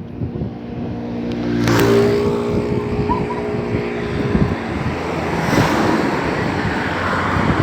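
A motor engine running, a steady hum for a few seconds in the middle, under heavy gusting wind on the microphone.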